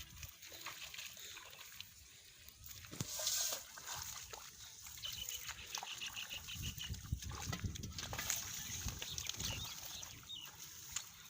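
Hands sloshing and splashing in shallow muddy water while groping for fish, irregular, with a louder splash about three seconds in.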